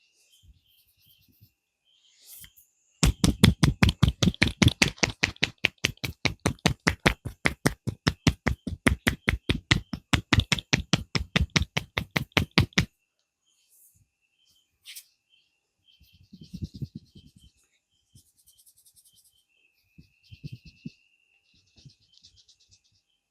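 Rapid, even hand strikes of a percussive head massage, about six a second for some ten seconds, then stopping; afterwards only a few softer scattered taps and rubs. Crickets chirp faintly throughout.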